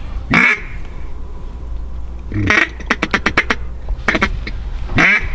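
Hand-held duck call blown by a hunter, making quacks: single quacks spaced out, with a fast run of about eight short quacks a little past the middle.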